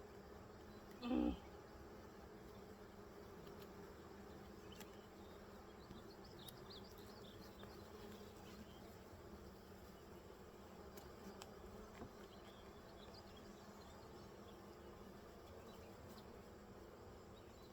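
Honeybees humming steadily from an opened, crowded hive. About a second in there is a brief, much louder falling sound.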